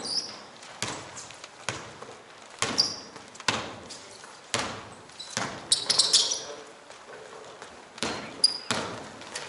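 A basketball is dribbled and bounced on an indoor court floor, with sharp bounces about a second apart and a quicker flurry in the middle. Short high squeaks come in between, typical of sneakers on the court.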